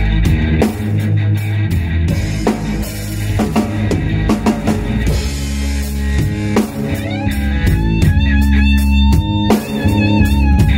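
Small rock band playing an instrumental passage on electric bass, drum kit and electric guitar, with steady cymbal strokes over the bass. About two-thirds of the way in, a lead electric guitar line with bent and held, slightly wavering notes comes to the front.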